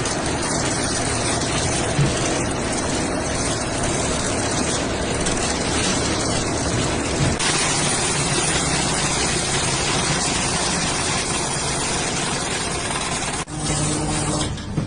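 Rebar-processing machine running with a steady mechanical noise; the sound changes about halfway through and drops out briefly near the end.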